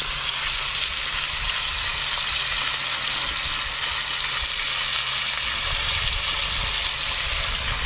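Lamb ribs sizzling steadily in olive oil in a hot cast-iron pot.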